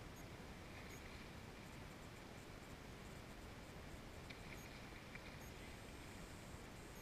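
Near silence: a faint steady hiss with a few faint scratchy ticks, about a second in and again around four to five seconds.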